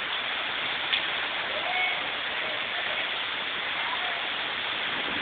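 Torrential rain from a severe thunderstorm pouring down in a steady, dense hiss, with one sharp tick about a second in.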